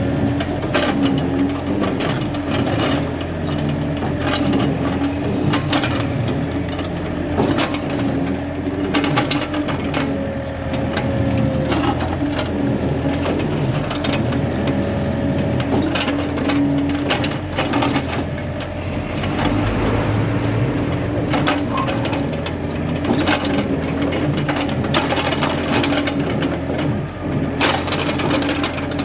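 Excavator diesel engine running steadily under work, with many short clanks and scrapes through it.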